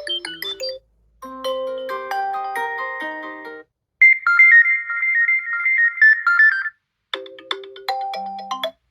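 Xiaomi phone's preinstalled ringtones previewed one after another: the end of one short melody, then three more, each stopping abruptly after a couple of seconds with a brief silence between. The middle one is a quicker, higher tune.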